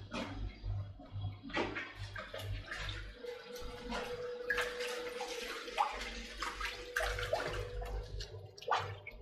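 Water splashing and sloshing in a plastic basin as raw pork pieces are rubbed and washed by hand, in many small irregular splashes. A faint steady hum runs for a few seconds in the middle.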